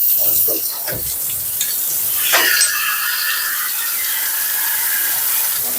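Water spraying steadily from a grooming tub's hand sprayer, a constant hiss.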